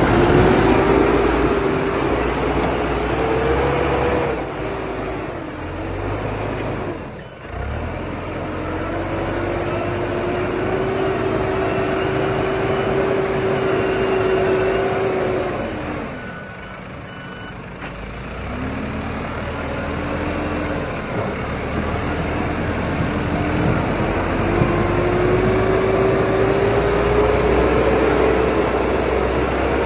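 Diesel engine of an AOLITE BL70-25 backhoe loader running under working load, its pitch rising and falling as it revs up and down. It drops back twice, about a quarter of the way in and again just past halfway.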